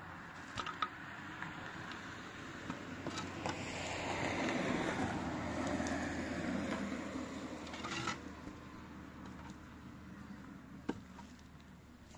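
A vehicle passing by: its noise builds over a few seconds, peaks about halfway through and fades away. A few sharp clicks come near the start and again near the end.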